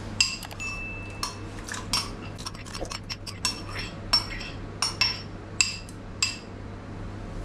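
Metal spoon clinking and scraping against a glass bowl as chopped cucumber is emptied into a steel pot: a dozen or more sharp, ringing clinks at uneven intervals.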